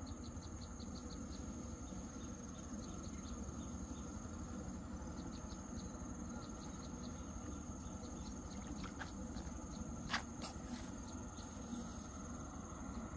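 Insects chirping outdoors: a steady high buzz with a rapid pulsing chirp of about five a second, over a low background rumble. A few short clicks or knocks come about ten seconds in.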